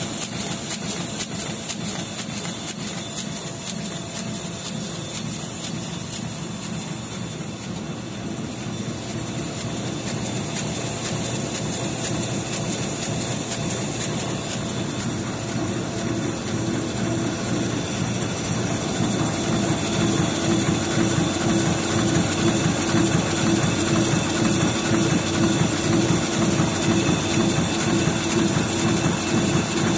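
Jiangsu Ruyu RYS10402B two-colour perfector sheetfed press running, printing thin 28gsm paper: a steady, fast mechanical clatter of the feeder and sheet transport. It grows louder past the middle, where a steady hum comes in.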